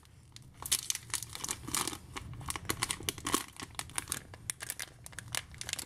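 Foil blind-bag packet crinkling and crackling in irregular bursts as hands pull and twist at it, trying to tear it open.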